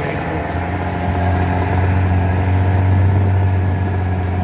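Boat's outboard motor running steadily under way, a constant low hum.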